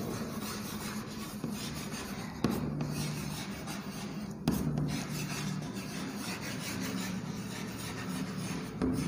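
Chalk scratching on a blackboard as words are written by hand, with a couple of sharper strokes along the way.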